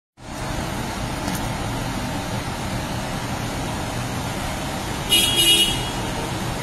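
Steady background traffic noise after a brief dropout at the very start, with one short, sharp high-pitched sound about five seconds in.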